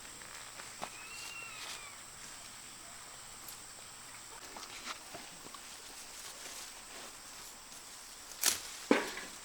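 Rural outdoor ambience: a steady high buzz, a short rising-and-falling call about a second in, and faint clicks, then two sharp knocks close together near the end.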